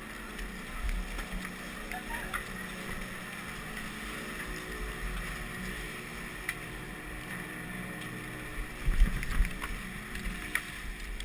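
Chairlift terminal machinery running with a steady mechanical hum and rumble, scattered with small clicks. About nine seconds in, a cluster of louder low knocks and thumps.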